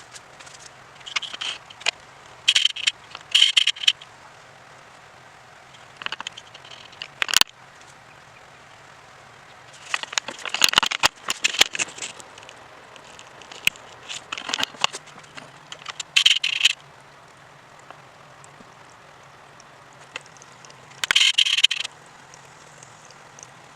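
Intermittent scraping and rattling from hands handling parts and tools, with sharp clicks, in about a dozen irregular bursts over a faint steady low hum.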